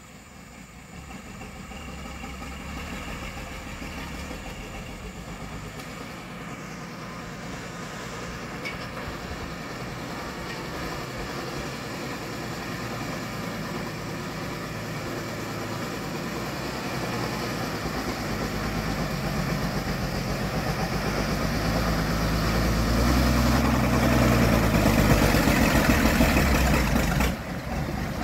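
Homemade logging truck's engine running, growing steadily louder and deeper over the stretch, then dropping off suddenly near the end.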